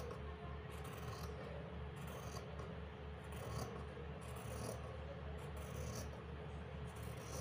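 Fabric scissors cutting through cotton cloth along a marked curve, a series of short rasping snips about once a second, over a low steady hum.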